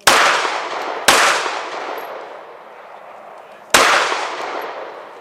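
Three 9mm pistol shots: two about a second apart, then a third after a pause of some two and a half seconds. Each is followed by a long echo that fades over a second or more.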